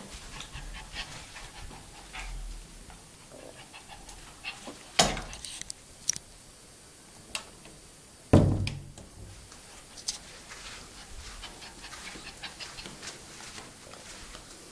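A small pet animal moving about close to the microphone, with scattered clicks and scuffles and two loud knocks, about five and eight seconds in.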